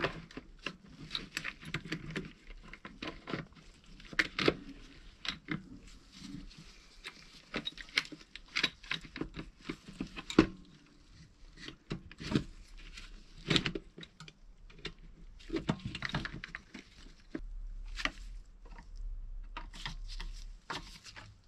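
Scattered light clicks, taps and rattles of small metal parts and tools being handled on a workbench, as a carburettor and its gasket are fitted back onto a small two-stroke generator engine.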